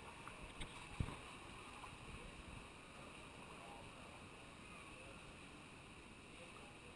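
Faint indoor swimming-pool ambience: a steady wash of water noise and distant swimmers splashing in a reverberant hall, with one sharp knock about a second in.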